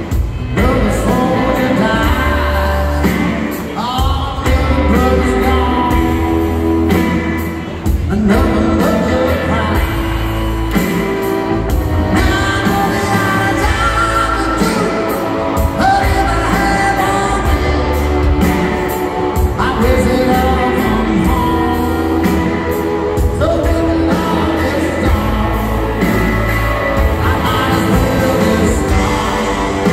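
Live country band in concert, a male lead singer over electric guitar, bass and drums, heard from the crowd in a large arena.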